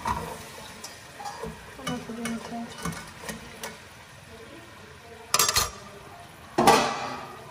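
Metal spoon stirring and clinking in a stainless steel pot of seafood boil, with light clinks of utensils and the pot lid. Two loud metallic clatters cut in a little after five seconds and again about a second later.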